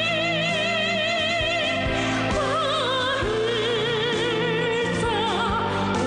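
Music: a song's melody with heavy vibrato over a backing track with a steady beat.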